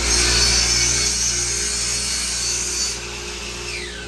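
DeWalt 779 sliding miter saw cutting through wood: the motor whine is already up to speed, the cut hisses loudly for about three seconds, and the blade then winds down with a falling whine near the end.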